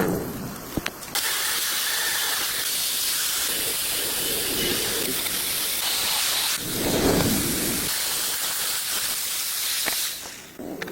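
A steady hiss that starts abruptly about a second in and stops shortly before the end.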